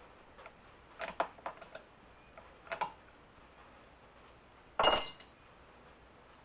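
A flathead screwdriver and metal chainsaw parts clicking and clinking while the chain tension is adjusted: a few light clicks about a second in and again near three seconds, then one sharp, ringing metallic clink near five seconds.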